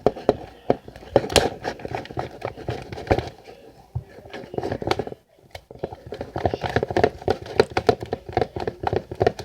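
A mixing utensil stirring shaving cream into white glue in a bowl, giving fast, irregular clicks and scrapes with a short pause about five seconds in.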